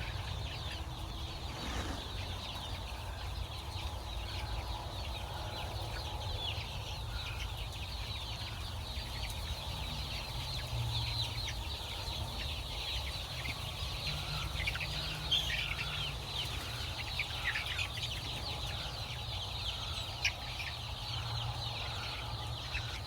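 A flock of chickens clucking and calling, many short high calls overlapping without a break, over a low steady rumble.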